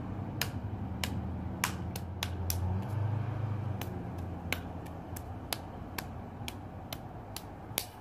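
Smartphone camera shutter clicking over and over, about two clicks a second, over a low steady hum.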